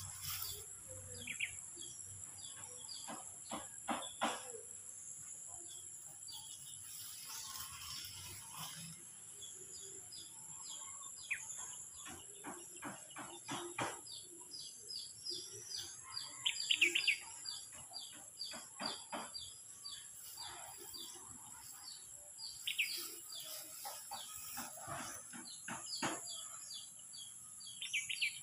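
Birds chirping in short repeated notes over a steady high insect drone, with scattered short rustling tears as a goat crops grass and clover.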